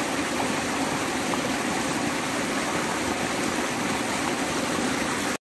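River water rushing steadily over rocks, cutting off abruptly near the end.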